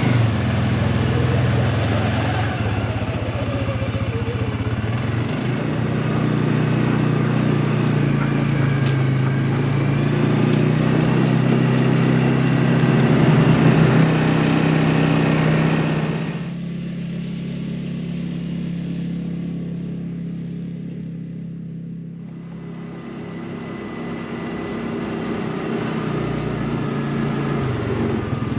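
Small engine running as a vehicle is driven along. Its note rises and falls, then the engine eases off about 16 seconds in and picks up again near the end.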